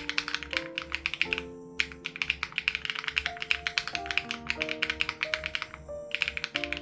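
Fast typing on a custom mechanical keyboard, an SPM AL87B with BSUN Raw switches and its sound-dampening foam removed: a rapid stream of keystroke clacks that pauses briefly about two seconds in and again near six seconds. Soft background music with held notes and a low steady pulse plays underneath.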